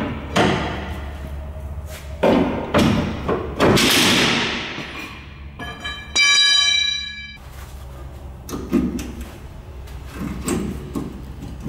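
Hammer blows and metal clanks as the rear leaf spring bolt of a 1978 Chevy K30 pickup is driven out, its head ground off to drop the spring. There is a longer noisy crash about four seconds in, and a ringing metallic tone for about a second a little after six seconds.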